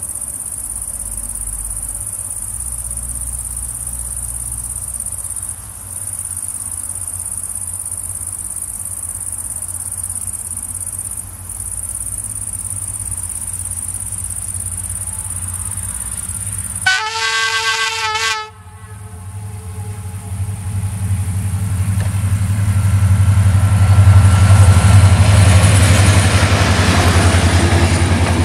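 Crickets chirping steadily over a low, distant diesel rumble. About seventeen seconds in, a GM Class 65 diesel-electric locomotive sounds one horn blast of about a second and a half that cuts off sharply, then its engine and train grow louder as it passes, loudest a few seconds before the end.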